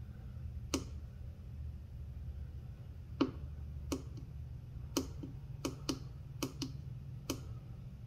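Push button on a DC battery monitor meter clicking about ten times at an uneven pace, several in quick pairs, as its readings are cleared back to zero.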